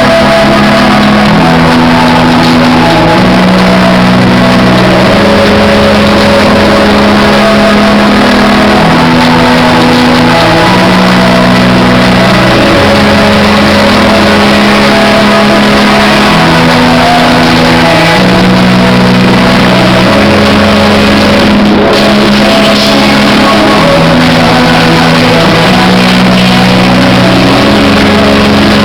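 Loud, distorted music played over a sound system, with a bass line stepping through the same few notes in a repeating pattern. The recording is overloaded, giving bad sound quality.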